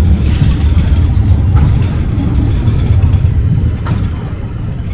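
Loud low rumble of motor traffic in a city street.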